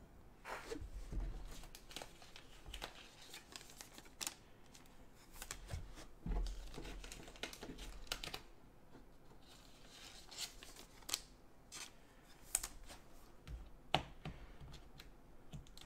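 Trading cards and rigid plastic top loaders being handled: soft rustling and sliding scrapes with scattered light clicks of plastic.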